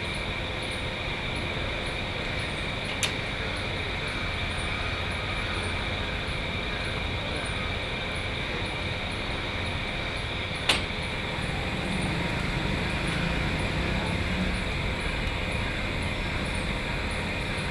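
Steady hum of road traffic, with two sharp clicks: a small one about three seconds in and a louder one near eleven seconds.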